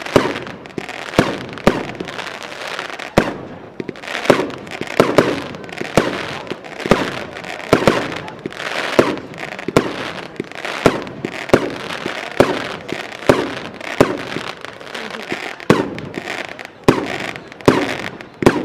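A fireworks cake, Royal Fireworks' Garden of Eden, firing shot after shot: sharp bangs of heavy bursts, about one to two a second, with crackle between them.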